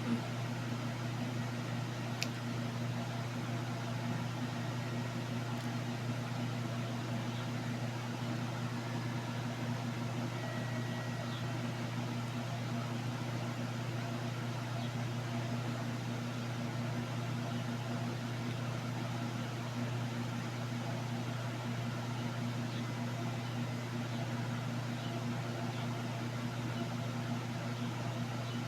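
Steady low hum of a small electric motor over an even hiss, unchanging throughout.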